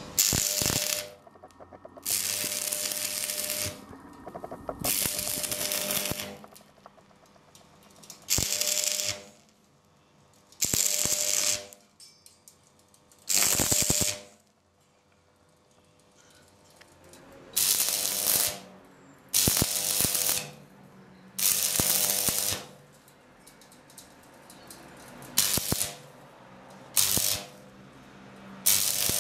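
Electric arc welding in about a dozen short strikes, each a crackling hiss lasting half a second to two seconds, with pauses between them. A steady hum carries on through the gaps.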